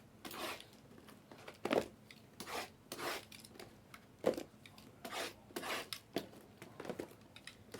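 Sealed trading-card boxes being handled on a table: irregular rubbing and scraping of cardboard and wrap, with two short knocks.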